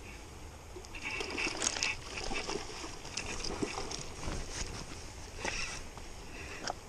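Faint rustling and scattered clicks of a spinning rod and reel being handled through a cast.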